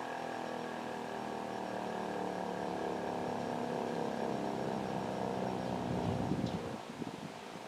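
American Signal Corporation T-128 siren winding down at the end of its Attack Signal test: a steady tone slowly falling in pitch and fading away about six seconds in. Wind buffets the microphone near the end.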